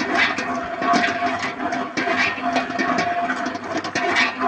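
Commercial planetary stand mixer running, its dough hook kneading donut dough in a steel bowl: a steady motor hum with recurring knocks as the dough turns against the bowl.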